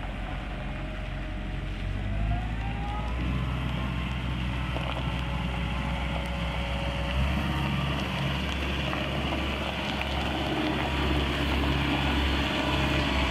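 Caterpillar M313D wheeled excavator's diesel engine running steadily as the machine drives and turns, with a rising whine about two seconds in. The low engine note grows stronger about seven seconds in.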